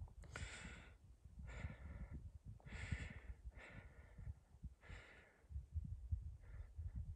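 Breathing close to the microphone, about six breaths a second or so apart, over a low rumble.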